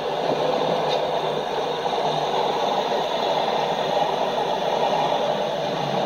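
Steady rushing noise played back through a computer's speakers.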